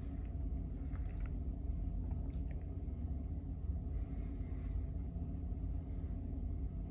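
Steady low background hum and rumble, with a few faint ticks from fingers handling a folding pocket knife.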